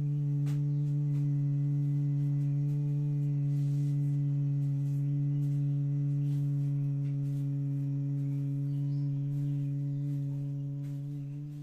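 A person humming one long, steady low note on a slow exhalation: the humming breath of bhramari pranayama, the yogic 'bee breath'. The hum holds one pitch and tails off near the end as the breath runs out.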